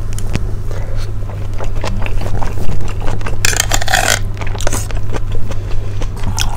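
A person eating rice porridge with a metal spoon: chewing and small spoon clicks over a steady low hum, with a short, loud scraping rustle about halfway through.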